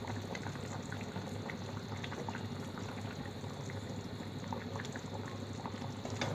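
Chicken and potato curry bubbling at a boil in a kadai: a steady simmer with many small scattered pops, over a low steady hum.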